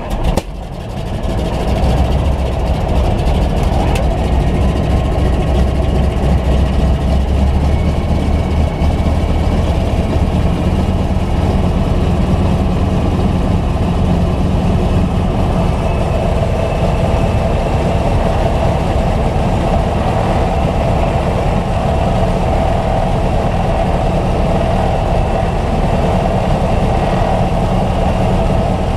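PZL-104 Wilga 35A tow plane's nine-cylinder radial engine catching just after the "clear prop" call and then running steadily. A deep low rumble is heaviest for the first ten seconds or so, then eases a little.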